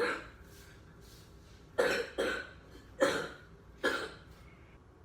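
A man coughing hard and repeatedly, the coughs coming in quick pairs, put on to fake coughing up blood.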